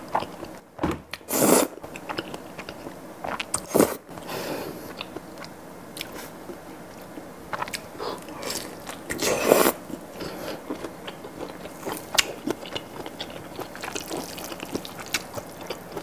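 Close-miked eating: noodles of thick cream pasta slurped, then a bite into a grilled kielbasa sausage and chewing, with many small sharp mouth clicks through the second half.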